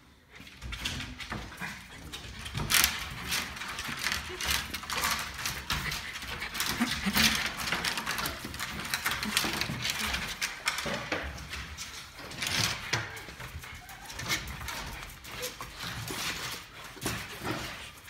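Several excited West Highland white terriers making dog noises, mixed with irregular scrapes and knocks as they jump up against the wooden walls of their kennel pens.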